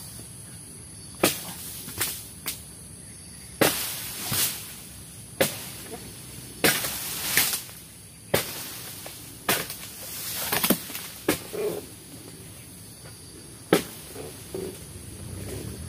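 Oil palm harvesting pole's blade chopping into the frond bases of a short oil palm: about a dozen sharp, irregular strikes, several followed by rustling swishes of palm fronds.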